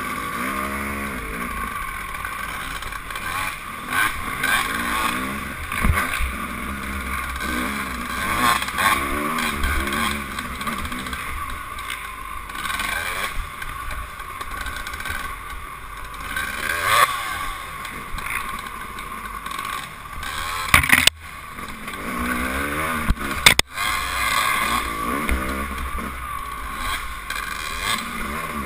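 Dirt bike engines revving up and down over and over on a tight trail: a 1997 Suzuki RM250 two-stroke ridden just ahead and the following bike. Two short sharp knocks come about three-quarters of the way through.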